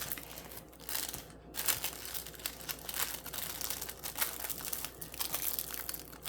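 Packaging crinkling and rustling in irregular spurts as a hand rummages in a box and tugs out a tightly packed diamond painting kit.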